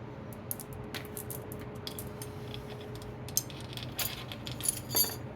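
Metal roller drive chain clinking and rattling as it is handled and fed onto the ATV's sprockets: a string of light metallic clicks that bunch up and get loudest about four to five seconds in.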